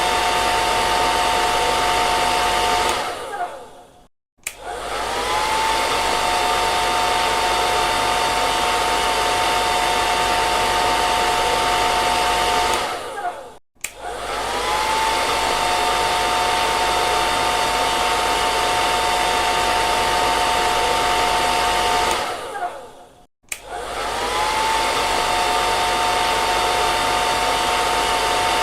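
Hair dryer blowing with a steady rush of air and a steady two-note motor whine. Three times it fades out over about a second, falls silent briefly and starts again, the whine rising in pitch as it comes back up to speed.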